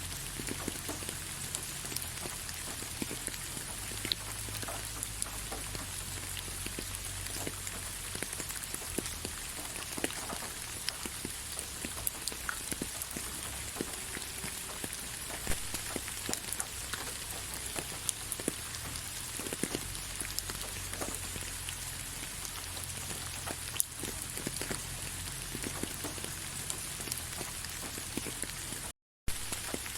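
Gentle rain falling: a steady soft hiss with many scattered drops tapping. It cuts out for a moment near the end.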